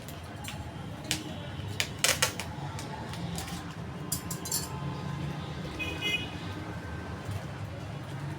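Scattered sharp clicks and light clatter of items being handled while a parcel is packed, the loudest cluster about two seconds in and a quick run of clicks a little past the middle, over a steady low hum.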